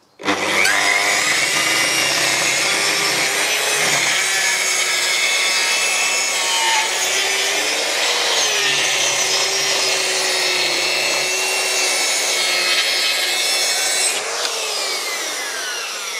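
Handheld circular saw starting up and ripping a 25 mm spruce board along the grain, the motor straining noticeably under load with its pitch sagging as it bogs. Near the end the saw comes out of the cut and the blade winds down with a falling whine.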